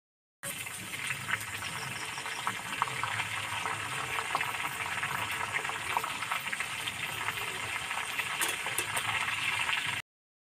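A whole marinated chicken deep-frying in hot refined oil in a karahi kept on a low fire: a steady sizzle with small scattered crackles and spits. The sound drops out briefly at the very start and again just before the end.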